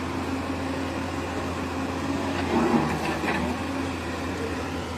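An engine running steadily, a constant low hum with a steady drone above it, with faint voices in the background.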